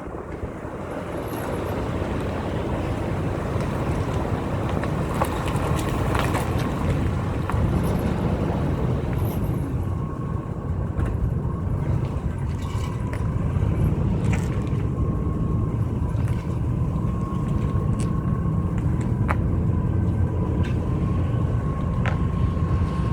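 2001 Ford F-150 running with a steady low rumble, scattered light ticks, and a thin steady whine that comes in about ten seconds in; these are the strange sounds the owner is asking about.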